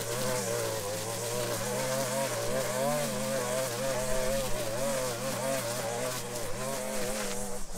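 Gas-powered string trimmer running at high speed while cutting tall grass, its engine pitch wavering up and down as the line bites into the growth.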